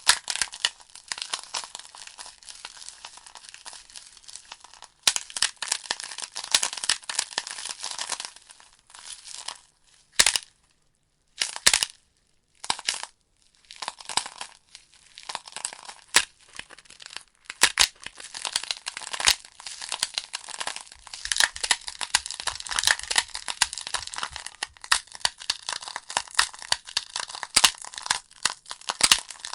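Burning logs crackling in a fireplace: dense, irregular pops and snaps over a steady hiss. The fire drops almost to silence for a few seconds about ten seconds in, then crackles on.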